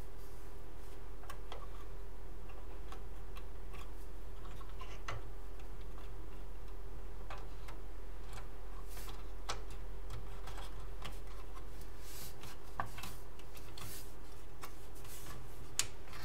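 Light plastic clicks and taps of a RAM stick being handled and pressed into a motherboard DIMM slot, with a couple of sharper clicks near the end as the slot latches snap shut. A steady low hum runs underneath.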